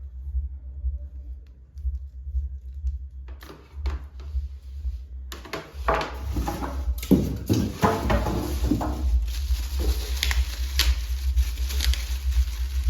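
Packaging being handled during an unboxing: rustling with light knocks and clicks, growing busier about five seconds in, over a steady low hum.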